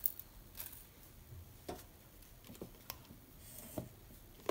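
A few faint, scattered clicks and rattles of dry roasted rice and lentil grains dropped by hand into a stainless-steel mixer-grinder jar, the sharpest click near the end.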